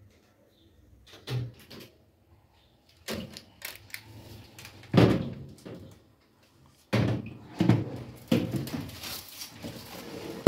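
Knocks and scrapes of a foil-lined baking tray being set into an open oven and pushed onto the wire rack: a few separate knocks, a loud one about five seconds in, then a busy run of clatter and scraping near the end.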